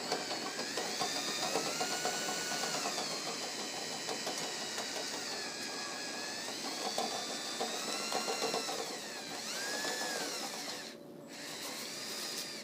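Electric drill spinning a rotary dryer-vent cleaning brush on its rod sections, the motor whine rising and falling in pitch as the speed changes. It stops briefly about eleven seconds in, then runs again.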